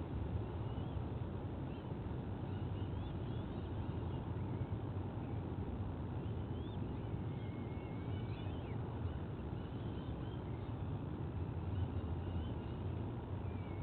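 Steady low outdoor rumble from the nest microphone, with faint, short, high chirping bird calls scattered throughout, a run of them about halfway in.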